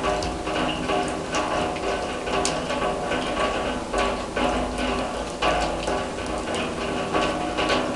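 Rain falling on a steel drum: irregular sharp drop taps over a steady patter. The drum rings on in several steady tones, which gives the rain a musical sound.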